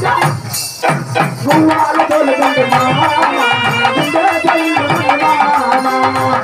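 Devotional folk bhajan music: an electronic keyboard plays a sustained organ-like melody over rhythmic brass hand cymbals and jingling ankle bells.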